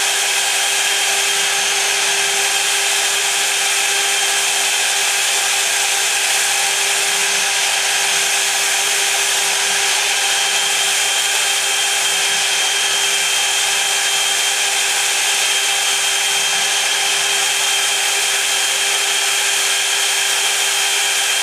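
High-speed spindle of a CNC engraving machine running steadily with a 60° engraving cutter as it engraves lettering: a constant whine in several steady tones over an even hiss.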